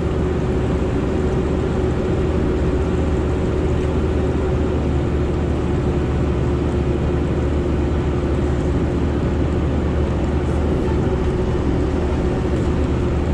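Sherp amphibious ATV's diesel engine running steadily, heard from inside its cab: a constant deep drone with one held tone above it.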